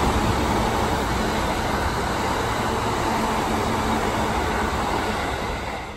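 Electric commuter train running along the tracks, a steady rumble of wheels on rail and running gear that falls away sharply at the very end.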